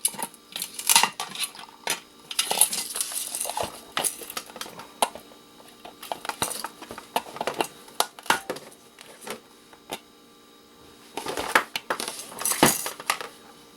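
Snipping and handling while a tea kettle's wiring is cut out for scrap: sharp clicks and metallic clinks and clatters in bursts, with a quieter stretch about two-thirds of the way through.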